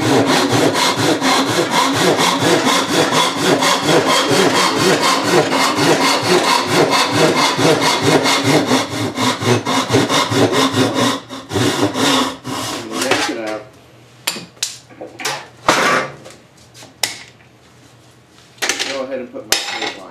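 Hand saw cutting across the end of a wooden tenon in quick, even back-and-forth strokes, trimming the tenon shorter. The sawing stops about two-thirds of the way through, and a few separate knocks follow.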